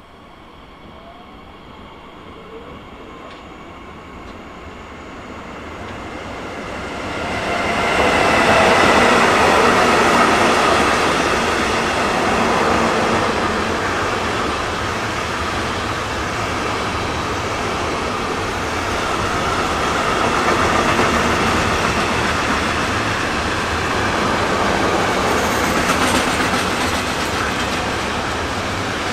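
Container freight train approaching and passing close by, growing steadily louder until it reaches full loudness about eight seconds in. Then a steady run of the wagon wheels on the rails with a clickety-clack.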